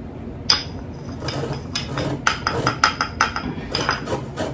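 A stone pestle knocking and scraping against a stone mortar in a quick, irregular run of sharp taps starting about half a second in, as ground chile de árbol powder is knocked out. A lemon being rasped on a fine hand grater goes on with it.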